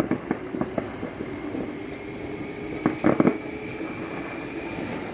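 Fireworks popping and crackling in the distance: scattered sharp pops in the first second and a quick cluster of louder bangs about three seconds in, over a steady background rumble.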